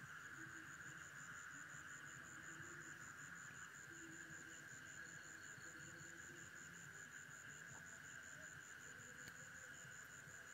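Faint night-time insect chorus: a steady high drone, with a cricket chirping in a fast, even rhythm of about five chirps a second.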